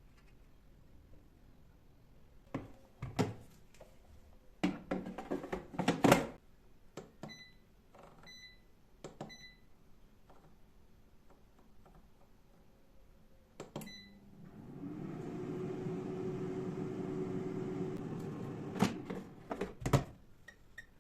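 Knocks and clatter of handling, then four short control-panel beeps from an air fryer. Its fan motor then spins up with a rising hum and runs steadily for about four seconds before stopping, followed by a few sharp clicks near the end.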